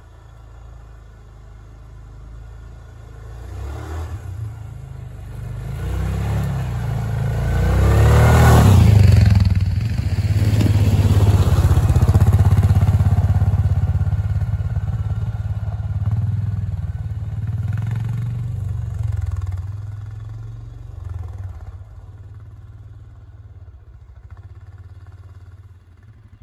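Suzuki King Quad 750 ATV's single-cylinder engine coming closer, passing about eight to nine seconds in with its pitch sliding, then pulling away and fading out over the second half.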